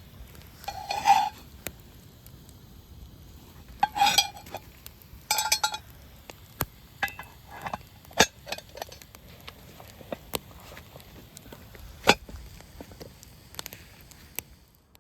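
Metal cookware and utensils clinking and scraping: three short scrapes with a ringing note in the first half, then scattered clinks and taps.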